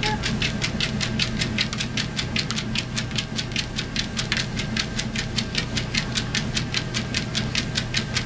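Electric treadmill running with a steady motor hum, while a Cardigan Welsh Corgi's paws strike the moving belt in a rapid, even patter of clicks, about five or six a second.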